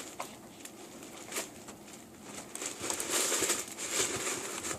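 Rustling and crinkling handling noise close to the microphone, with a few small clicks, louder in the second half.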